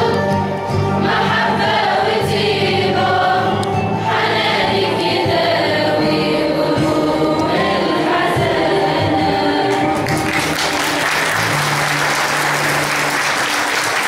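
Mixed youth choir singing an Arabic hymn to the Virgin Mary. The singing ends about two-thirds of the way through, and an audience breaks into applause.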